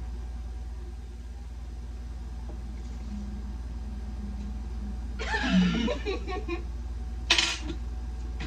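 A person giggling briefly a little past halfway, then a short sharp cough-like burst, over a steady low hum.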